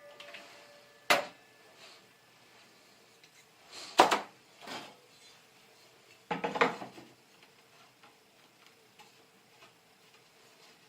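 Three sharp knocks with short clatters about 1, 4 and 6.5 seconds in, from a freshly cut wooden board being handled and set down on a miter saw.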